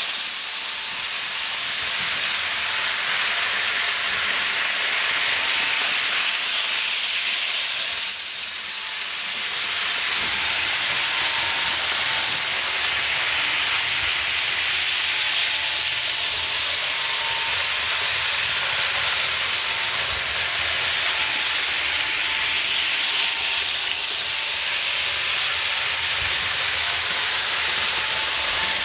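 Model trains running fast around the layout: a steady rushing hiss of wheels on the track, with a faint steady whine.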